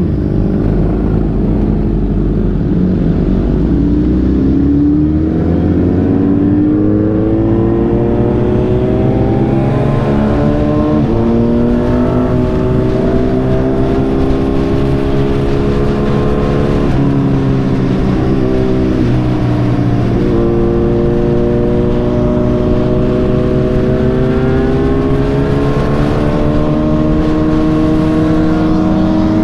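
Sportbike engine pulling away and accelerating through the gears. The revs climb steadily and fall back at each of several upshifts.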